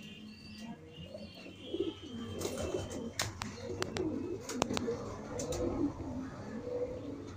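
Several domestic pigeons cooing, low wavering coos overlapping and growing denser and louder about two seconds in, with a few sharp clicks scattered through.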